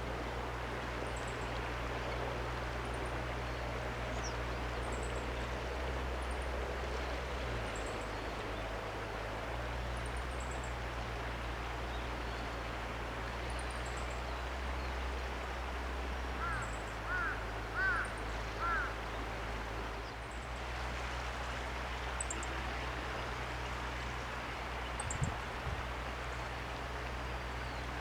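Steady waterside background noise with a low hum, faint high chirps repeating every second or two, and a short run of four louder bird calls about two-thirds of the way through.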